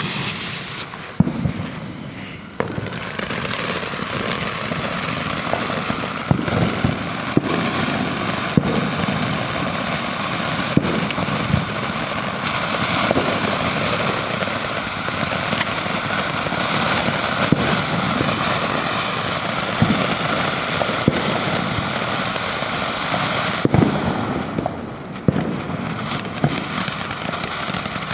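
TNT Global Lights ground-fountain firework spraying sparks: a steady hiss with scattered sharp pops. The hiss thins briefly near the end, then picks up again.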